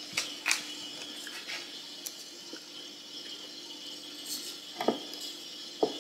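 Light taps and clicks of fingers and a paper label against a glass jar as the label is pressed on: a few scattered short handling sounds over a quiet room hum.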